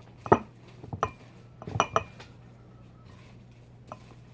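Wooden spoon knocking against a mixing bowl while stirring a thick, doughy batter: several sharp knocks with a brief ring in the first two seconds, then quieter, with one light knock near the end.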